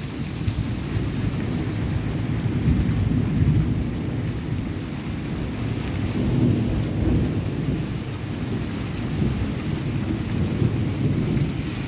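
Rainstorm: rain falling steadily under a low, rolling rumble of thunder that swells and fades several times.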